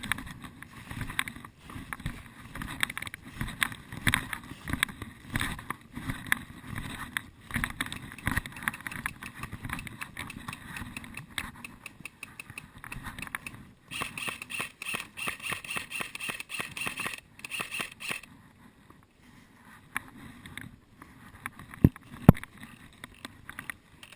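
Footsteps crunching and rustling through dry leaf litter and brush, with a brighter rustle in the middle and two sharp snaps near the end.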